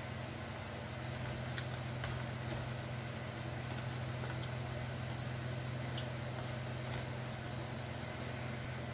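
A steady low hum, with a few faint soft ticks of boiled potato and jackfruit being squeezed and mixed by hand in a steel bowl.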